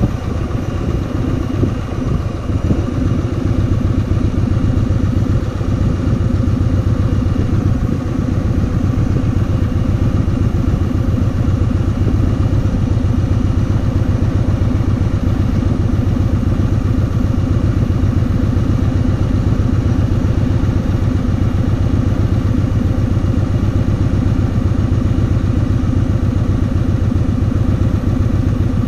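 Kawasaki VN2000's big V-twin engine running steadily, with an even pulse that holds the same pace throughout.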